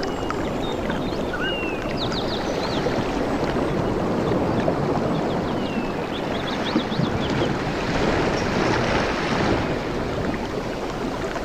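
Steady rush of river water and wind. Short high chirps come and go over it, mostly in the first few seconds and again about halfway through.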